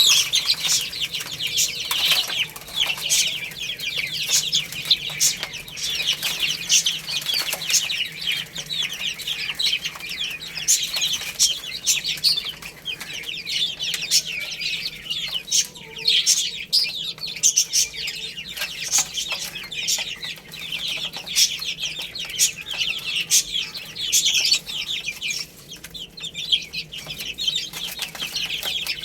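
Many baby chicks peeping together: a dense, continuous run of short, high chirps that fall in pitch.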